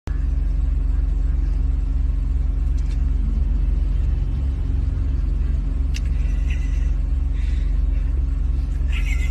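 Steady low rumble of a car's engine and running gear, heard from inside the cabin.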